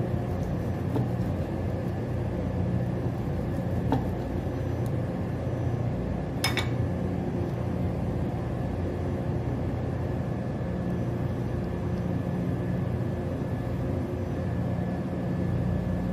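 Steady low mechanical hum of a machine running, with a faint click about four seconds in and a sharp tap about six and a half seconds in.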